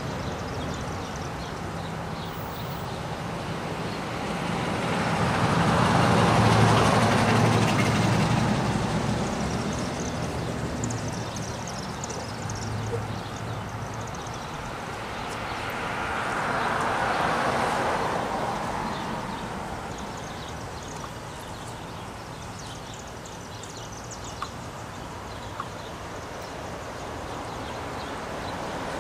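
Street traffic: a vehicle passes, swelling to a peak about six seconds in with a low engine hum. A second, fainter pass about seventeen seconds in is mostly tyre noise. Two faint clicks come near the end.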